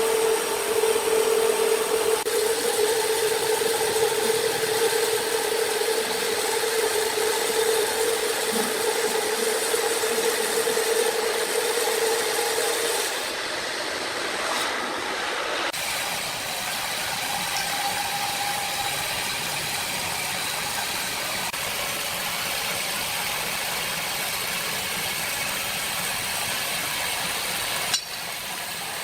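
Sawmill machinery running steadily: a continuous mechanical hum with a pitched tone. About thirteen seconds in the tone drops out, leaving an even rattling running noise.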